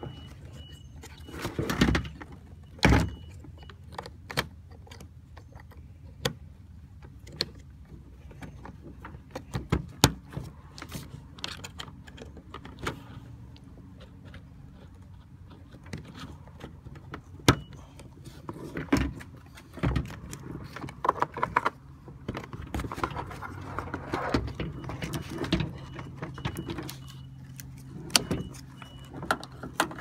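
Scattered clicks, knocks and rattles of a car door latch and lock actuator assembly's plastic housing, cable ends and rods being handled, over a steady low hum.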